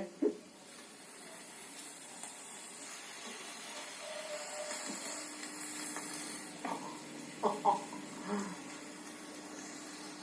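Meat sizzling on a barbecue grill: a steady hiss that grows stronger a few seconds in, with a few brief soft sounds near the middle.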